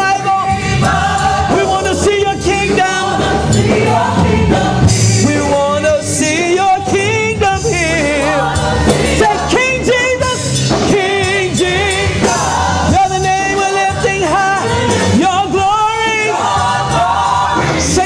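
A woman singing a gospel praise song solo into a handheld microphone, drawn-out wordless runs and held notes with vibrato, over steady instrumental backing.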